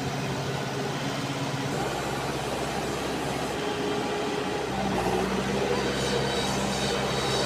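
Diesel engine of a Manitou MBL 745S backhoe loader running as the machine drives through deep mud, growing louder and higher about five seconds in.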